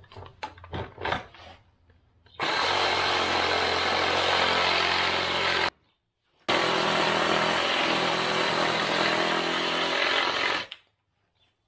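Cordless reciprocating saw cutting through the end of a wooden 2x4 rafter, finishing an angled cut that a circular saw left incomplete. A few knocks come first as the blade is set against the board. The saw then runs hard in two long bursts with a brief stop between them, and cuts off near the end.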